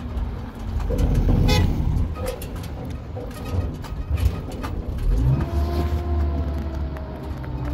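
Motor traffic: cars running past with a steady low rumble and scattered knocks, and a held tone starting about five seconds in that falls slightly in pitch, as from a passing vehicle's horn.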